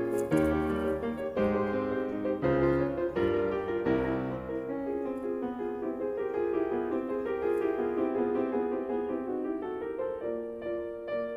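Background piano music: a slow melody of separate struck notes over low chords.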